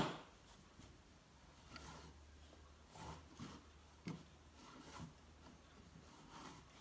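Handling noise from a plastic LEGO wolf model being moved about on a cloth-covered table: one sharp click at the start, then a few faint soft taps and rubs.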